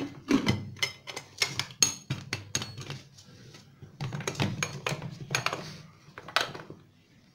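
Aluminium pressure cooker lid being fitted onto the pot and twisted to lock, a run of irregular metal clicks and clatters that thins out near the end.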